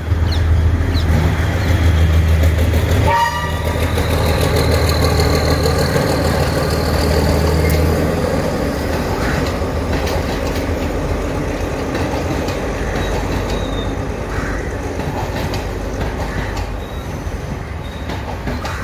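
Diesel passenger train passing at close range. Its engine drones steadily and loudly for the first eight seconds or so, with a short horn blast about three seconds in. The wheels then clatter over the rail joints as the carriages run by.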